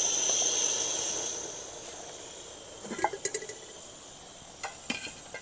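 Light clinks and knocks of steel cookware, a pot and its lid, in a scatter from about three seconds in, some with a short metallic ring. Before them a soft rushing hiss fades out over the first two seconds, and crickets chirp steadily throughout.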